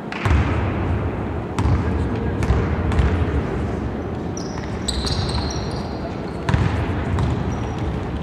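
Basketball bouncing on a hardwood gym floor, a handful of separate bounces ringing in a large hall, with a few brief high squeaks about five seconds in.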